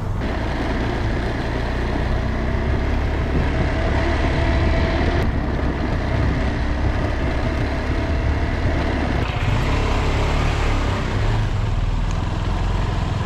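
KTM 390 Adventure motorcycle under way, its single-cylinder engine running in a steady mix of engine and road noise.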